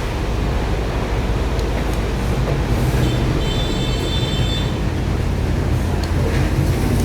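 A machine running steadily with a low rumble, and a faint high whine for about a second and a half, about three seconds in.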